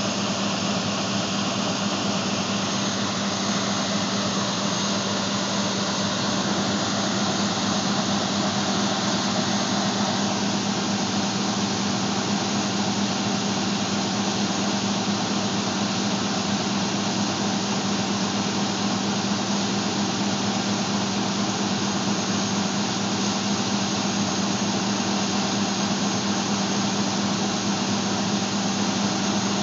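John Deere combine running: a steady drone of engine and machinery with a constant low hum.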